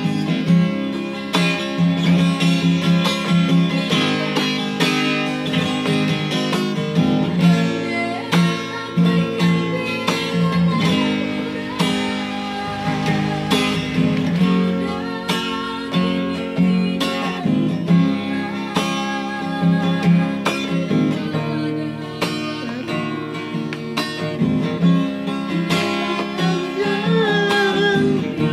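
A woman singing a Minang song over plucked acoustic guitar accompaniment.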